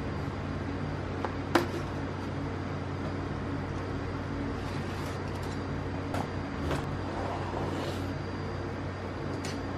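A few sharp clicks and taps from handling a keyboard's packaging, the loudest about one and a half seconds in, and a short rustle near the end, over a steady low hum.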